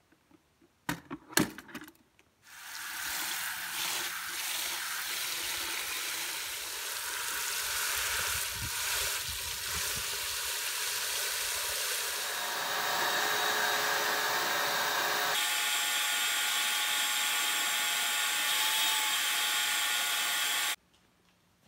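A few clicks and knocks, then a garden hose spray nozzle spraying water into a bucket onto the brass clock movement, a steady hiss. About twelve seconds in the sound changes to the steady whine of a shop vacuum cleaning the clock cabinet, which cuts off shortly before the end.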